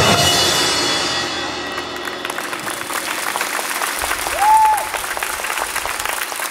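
Marching band's held chord rings out and fades over the first two seconds, giving way to audience applause, with one short high-pitched cheer from the crowd midway.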